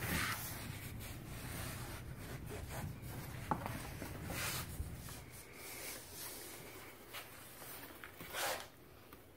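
Hands rubbing and smoothing headliner fabric against the molded headliner board, pressing it into the recesses around the fittings: soft, intermittent brushing swishes, with a louder stroke near the end.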